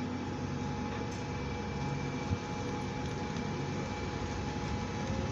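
A single-deck bus's diesel engine running as the bus moves off slowly and turns across the bus station yard, a steady low drone with a brief knock about two seconds in.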